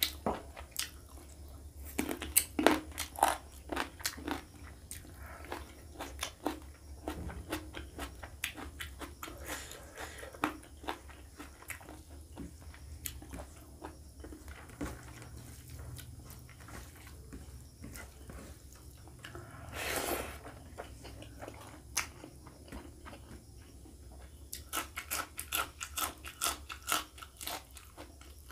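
Close-miked eating of rice and curry by hand: chewing, wet mouth smacks and sticky clicks of lips and fingers, coming in clusters, with a louder brief noise about two-thirds of the way through. A steady low hum sits underneath.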